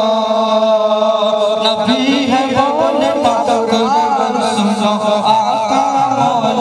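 A naat, a devotional song in praise of the Prophet, sung in long held notes that bend and waver.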